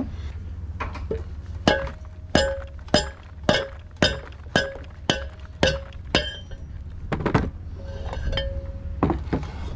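Mallet blows on a metal rod used as a drift, knocking the worn pivot-pin bushings out of an Ultra-Jet 340HT jet drive's steering nozzle. About nine even blows, roughly two a second, each with a short metallic ring, then two more blows near the end.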